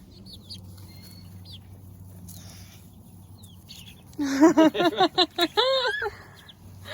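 Chickens clucking: faint short high calls at first, then about four seconds in a loud, rapid run of clucks lasting about two seconds.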